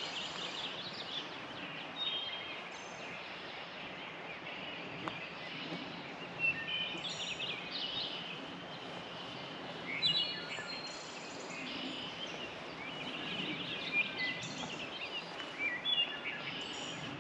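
Several songbirds singing and calling, in short chirped phrases scattered every second or two over a steady outdoor hiss.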